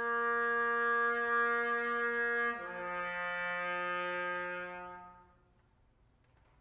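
Bass trumpet playing a long held note, then dropping to a lower held note after about two and a half seconds. The lower note fades away about five seconds in.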